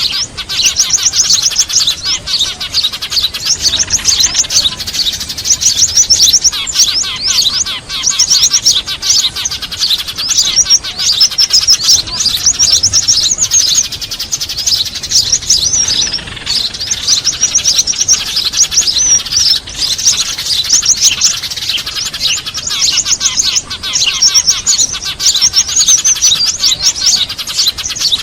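Dense, loud chattering of many small birds, Eurasian tree sparrows among them: rapid trains of short, high chirps with no pause. It is a lure recording for calling small birds in to a trap.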